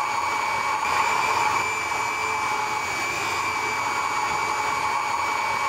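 Handheld electric immersion blender running steadily with a constant whine, blending chikoo fruit pieces into milk in a glass jar.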